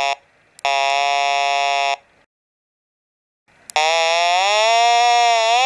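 Homemade 'Squeakie' test set squealing with a buzzy tone while the Retevis RT602 UHF walkie-talkie is tested on transmit. A steady tone stops just after the start, a second steady tone lasts about a second and a half, and after a pause a longer tone wavers and bends in pitch.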